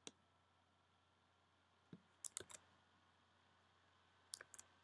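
Faint clicks of a computer mouse and keyboard: a single click at the start, a soft thump and a quick run of about three clicks around two seconds in, and about three more clicks near the end.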